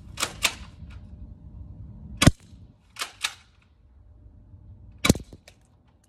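Cyma M870 spring-powered pump-action airsoft shotgun being fired and cycled: two sharp shots about three seconds apart. Before each shot the pump is racked back and forward, two quick clacks a quarter second apart.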